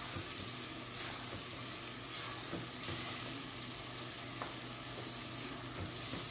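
Chicken frying in ghee and ground spice paste in a pot, sizzling steadily while a wooden spoon stirs and turns the pieces: the bhuna stage, dry-roasting the chicken in the masala on a slow flame with no water added.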